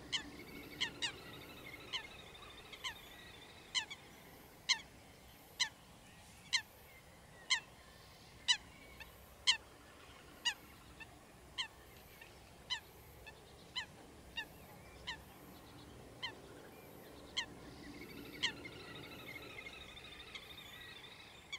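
A bird calling over and over: a short, downward-sliding call repeated about once a second, over a faint steady background.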